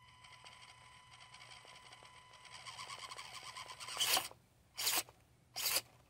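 Axial SCX24 mini rock crawler's small electric motor whining as it drives against the rock, with its tyres scrabbling and scraping on the stone. The scraping builds from about halfway through, and near the end there are three short, loud scrapes.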